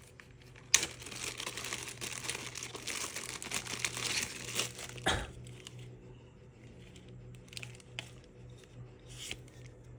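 Plastic packaging crinkling as it is unwrapped by hand. A sharp click comes about a second in, then dense crinkling for several seconds, then sparser rustles and light clicks.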